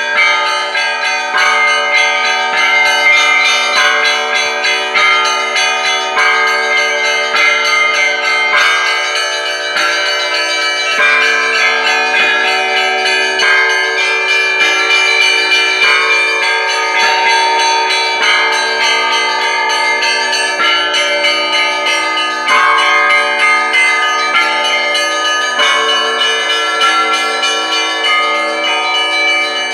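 Russian church bells rung in a continuous peal: several bells of different pitches struck in a steady repeating rhythm, each strike ringing on under the next.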